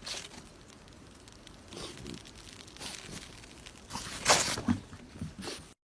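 Rustling, crinkling noise like paper or plastic being torn and crumpled, with a louder burst about four seconds in; it cuts off suddenly near the end.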